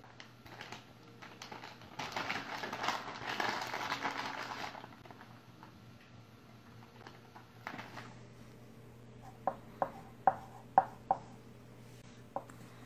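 A plastic dog-treat pouch crinkling and rustling for about three seconds, followed later by a quick run of about six sharp clicks.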